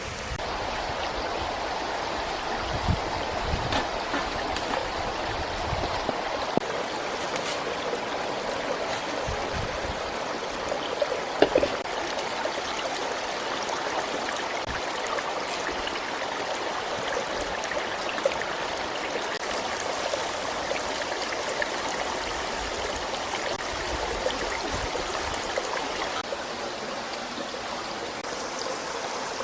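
Steady rush of running water, with a few brief clicks and knocks, the sharpest about a third of the way in.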